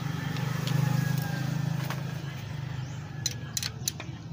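A motor vehicle engine running in the background with a steady low hum that swells about a second in. Near the end come a few sharp metallic clicks as a ring spanner is set on a rocker-arm adjuster locknut.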